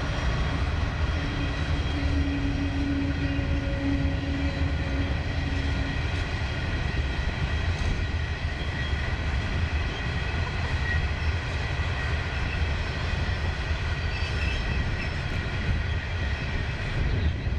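Coal hopper wagons of a freight train rolling past: a steady rumble of steel wheels on the rail, with thin, steady high-pitched ringing from the wheels and rails over it.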